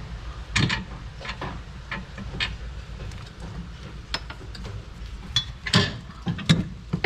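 Irregular clicks and knocks of hand tools and car suspension parts being handled while a rear shock absorber and upper control arm are removed, over a steady low hum.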